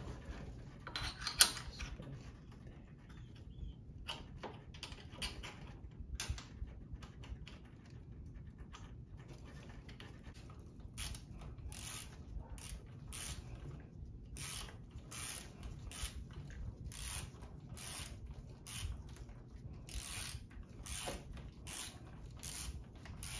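Hand ratchet clicking in short repeated strokes as it tightens the bolts at a mountain bike's handlebar stem. The strokes are scattered at first, then settle into a regular back-and-forth of about one to two a second.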